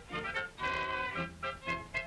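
Lively orchestral music with brass, played as a quick run of short notes, from the opening titles of a late-1920s synchronized sound cartoon.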